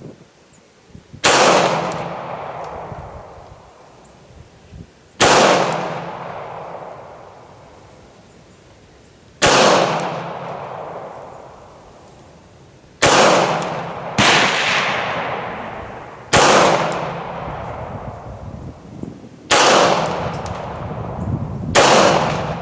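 Beretta 92X Performance 9mm pistol firing eight single shots of 124-grain ammunition in slow, deliberate fire, mostly a few seconds apart. Each shot is sharp and loud, followed by a long echo that fades away.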